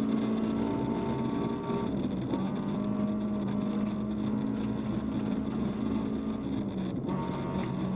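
VW Polo 1.4 16v rally car's four-cylinder engine running hard under load, heard from inside the caged cabin. The engine note breaks and shifts briefly twice, about two seconds in and again near the end, as on gear changes.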